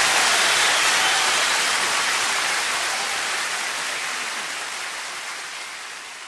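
Audience applauding, the clapping fading away gradually.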